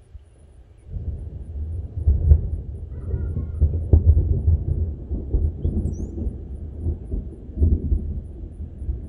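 Nearby thunder rumbling: a loud, rolling low rumble that builds about a second in and swells in several surges, the strongest about two and four seconds in.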